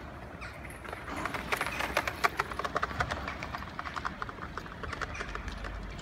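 A rapid, uneven run of sharp clacks from hard footfalls on a hard surface. It starts about a second in, is loudest a couple of seconds in, and thins out near the end.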